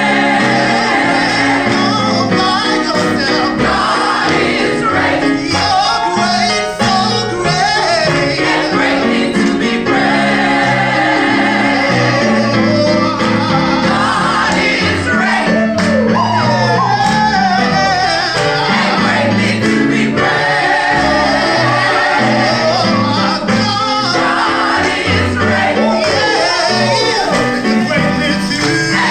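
Gospel singing: voices with instrumental backing, a lead voice sliding through runs over held chords.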